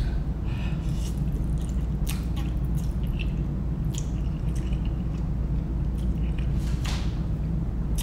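Close-up eating sounds of spicy instant noodles: a person slurping and chewing, with scattered short wet smacks and sucks. A steady low hum runs underneath.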